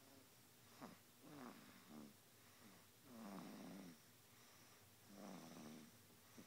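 A baby snoring quietly: about three slow snoring breaths a couple of seconds apart, each with a low buzzing pitch.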